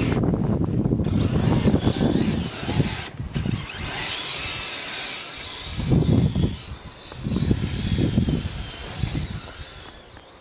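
Twin brushless electric motors of an RC snowcat whining, the pitch wavering up and down with the throttle, over heavy irregular low rumbling that comes in surges. The sound fades near the end.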